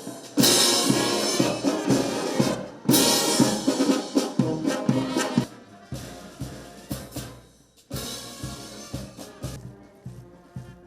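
Music with brass and drums and a steady beat, louder at first and dropping to a softer passage about halfway through.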